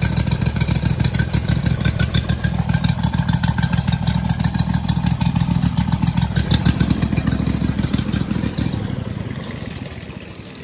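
Honda GX620 V-twin engine running steadily with a fast, even firing beat. About eight and a half seconds in its sound drops off sharply and it runs much more quietly.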